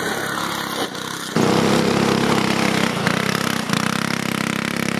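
Small go-kart engine running hard. About a second in the sound cuts to a louder, steadier engine note.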